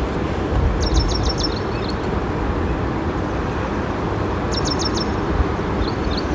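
Steady outdoor rush of wind buffeting the microphone over a flowing river. Twice, a small bird gives a quick run of high chirps.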